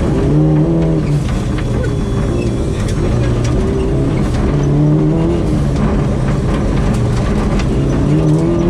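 Mazda 323 GTR rally car's turbocharged four-cylinder engine heard from inside the cabin, its revs rising and falling several times as it is driven hard on gravel. Gravel and stones clatter against the car's underside.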